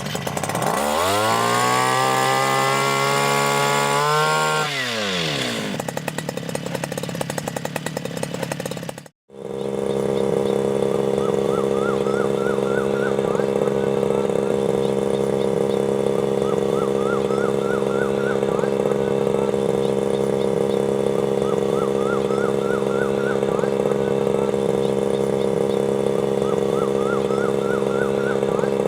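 A backpack brush cutter's small engine, rigged to drive a sprayer pump, revs up over the first couple of seconds, holds, and drops back about four seconds in. After a cut about nine seconds in, it runs steadily at constant high speed, with short groups of faint rising chirps every few seconds.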